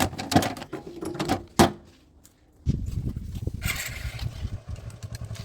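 A few sharp metallic clanks and knocks, then after a short pause a heavy diesel engine comes in, running with a rapid low chugging.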